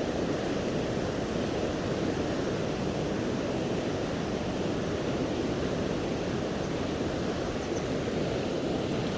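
Steady rush of a fast, swollen river in flood, a deep even wash of water noise with no breaks.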